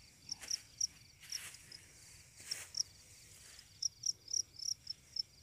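Field crickets chirping in short, high, repeated pulses that cluster more thickly about four seconds in, with a few soft swishes of a stick sweeping through grass.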